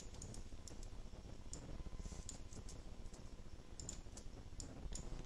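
Scattered light clicks of a computer mouse, about a dozen at irregular intervals, over a faint low background hum.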